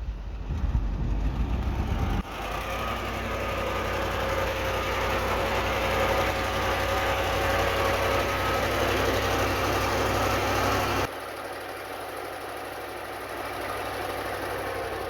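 Diesel engine of heavy earthmoving machinery running, in clips joined by abrupt cuts about two seconds in and again about eleven seconds in; the middle stretch carries a steady whine over the engine noise.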